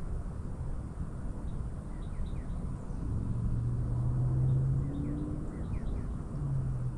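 Outdoor ambience: a low rumble with scattered short bird chirps. A steady low drone sets in about three seconds in.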